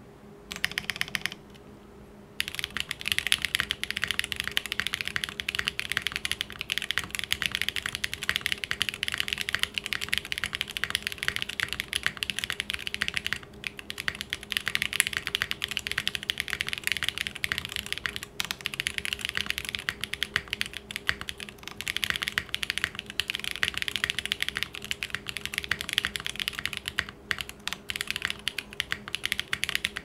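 Typing on a Monokei x TGR Tomo mechanical keyboard with hand-lubed Geon (Tecsee) Clear long-pole switches in an aluminum plate, with no foams. The sound is rather high pitched and is picked up close by a condenser mic. A few separate key presses come first, then fast, continuous typing starts about two seconds in.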